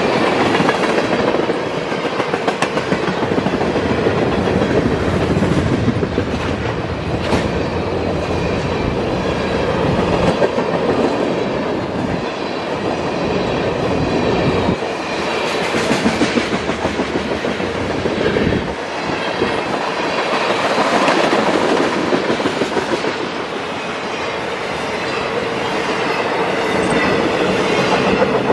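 Freight cars of a fast train rolling past close by: steel wheels on the rails give a steady rolling rumble with clattering clicks.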